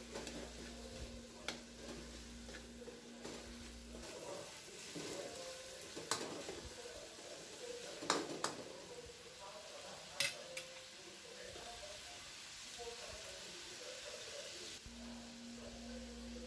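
Shrimp, pork and tomato sautéing in a wok: a steady sizzle, with a metal spatula scraping and clicking against the pan a few times as the food is stirred.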